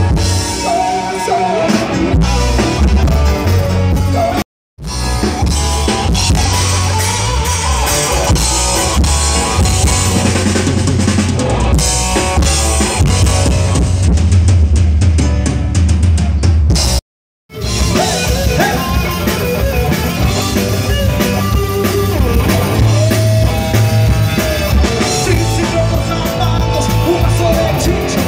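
Live rock band playing through a stage PA during a sound check: drum kit, electric guitars and keyboard. The sound cuts out to silence twice, briefly, about 4.5 and 17 seconds in.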